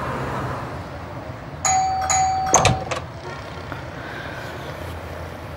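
Doorbell chime rung, two struck notes about half a second apart, followed by a few sharp clicks.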